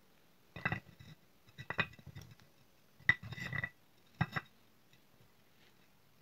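Pieces of broken fired-clay diya and slate chalk clinking against each other and a terracotta saucer as they are picked up and set down: about five sharp clinks with a short ring, roughly a second apart.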